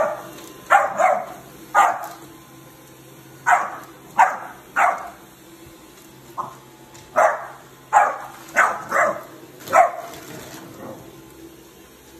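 A black puppy barking in short, sharp barks, about a dozen in irregular groups, that stop about ten seconds in.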